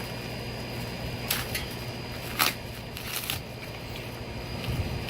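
Packaging of new exhaust parts rustling and crackling as it is handled and unwrapped, with a few sharp crackles over a steady low hum.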